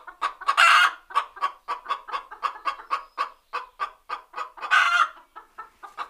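Domestic hen cackling her egg song: a fast run of short clucks, about four or five a second, broken twice by a long, louder squawk, about half a second in and near five seconds in. This cackle is the call a hen gives around laying an egg.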